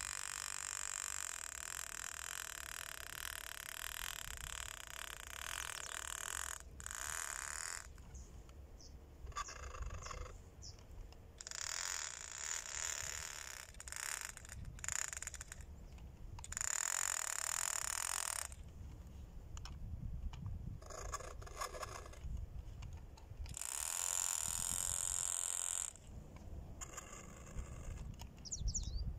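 Small electric motor of a radio-controlled toy boat whining in on-off bursts of about two seconds, each starting and stopping sharply as the throttle is opened and released, with a low rumble underneath.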